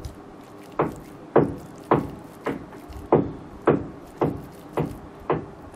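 A regular series of about ten sharp thumps, roughly two a second, starting about a second in.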